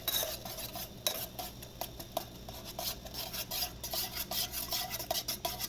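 A spoon stirring in a pot, with quick, irregular clinks and scrapes against its side, several a second.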